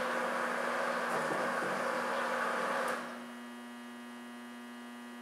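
Twin-screw bowl lift running, its electric lift motors driving the screws, then stopping about three seconds in as the bowl reaches the top and pauses. A steady electrical hum remains once the motors stop.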